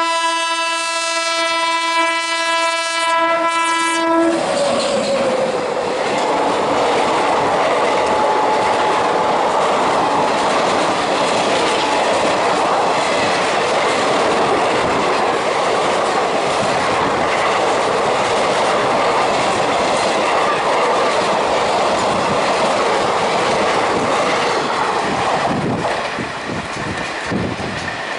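Indian Railways WAP-7 electric locomotive's twin-tone horn sounding steadily for about four seconds. Then the loud, steady rush of the express train passing at speed, with rhythmic wheel clatter near the end.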